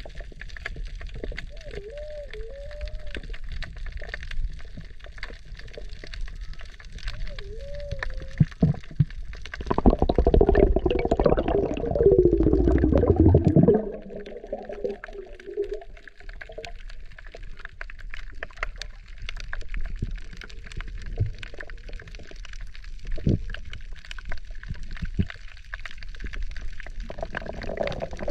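Water heard underwater through the camera's waterproof housing: low gurgling and sloshing, with short warbling bubble tones. About ten seconds in comes a louder stretch of bubbling gurgles lasting some four seconds, and it swells again near the end.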